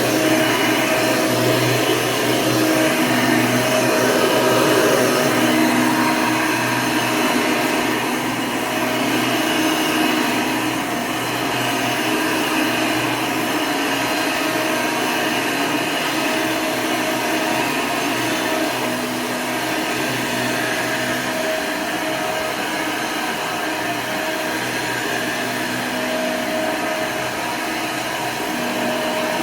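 1992 Hoover Legacy II upright vacuum cleaner, refitted with a 20-blade motor fan, running steadily with a constant hum.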